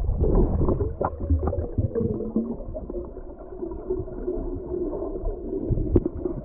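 Muffled underwater ambience picked up by a camera underwater: a low, dull water rumble with many faint scattered clicks and crackles, and one sharper click near the end.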